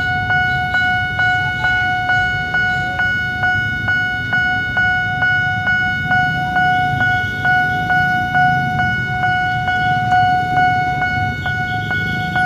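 Railway level-crossing warning bell ringing continuously in an even, fast rhythm of repeated strokes, with the low rumble of idling, queued traffic underneath.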